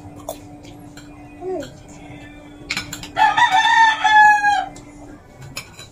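A rooster crowing once, loudly, a single call about a second and a half long that drops in pitch at its end. Spoons and forks click on plates now and then.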